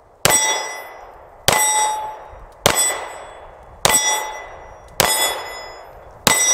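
Six shots from a Kahr K9 steel-frame 9mm pistol at an even pace, about one every 1.2 seconds, each met by the ringing clang of a hit steel plate target.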